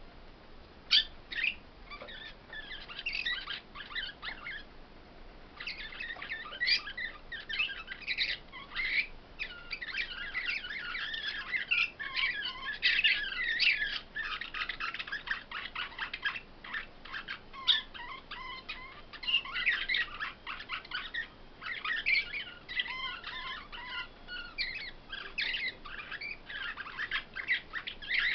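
Caged songbirds singing: a fast, high twittering song of chirps and trills, sparse at first and nearly continuous from about six seconds in.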